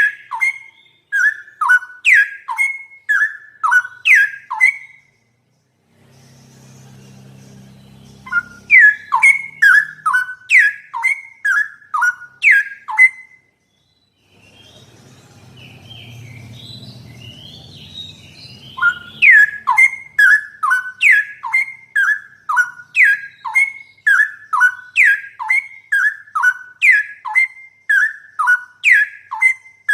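Straw-headed bulbul (cucak rowo) song: a fast, loud run of falling whistled notes, about two to three a second. It breaks off twice for a few seconds, leaving only a faint low rumble.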